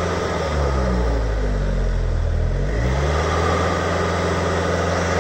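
Bobcat T66 compact track loader's diesel engine running at a raised idle, set higher by remote. Its note shifts briefly between about one and three seconds in, then holds steady.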